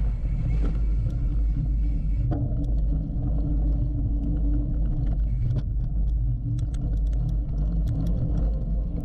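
Steady low rumble of wind buffeting a GoPro microphone and knobby tyres rolling over a dirt singletrack trail at cruising speed, with scattered light clicks and rattles from a hardtail mountain bike.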